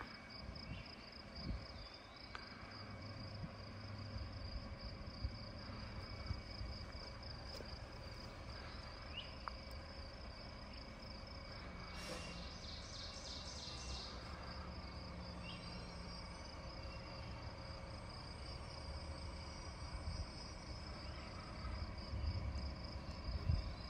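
An insect trilling steadily in a high, pulsing tone, with a short run of louder rapid notes about halfway through.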